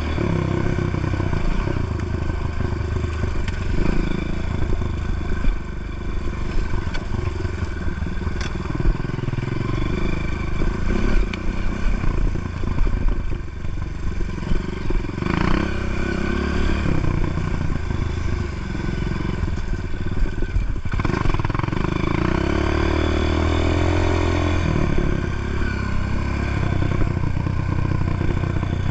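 Enduro dirt bike's engine running and revving up and down as the bike is ridden over a rough, rocky trail, with a few short knocks from the bike over the ground. The engine dips briefly about three quarters of the way through, as between gear changes, then picks up again.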